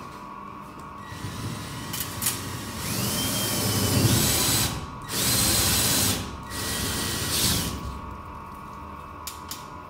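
Cordless drill boring a hole up into a ceiling. It runs in three bursts of a few seconds each with short pauses between, and the first burst carries a whine that rises in pitch near its end.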